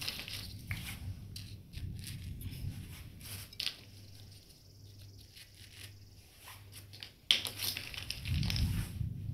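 Plastic toy building bricks being set down and pressed together on sand: scattered clicks, scraping and crunching, with a louder crackle about seven seconds in.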